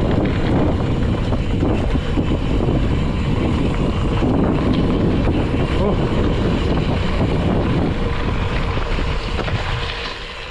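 Loud, steady wind buffeting on the camera microphone, easing off a little near the end.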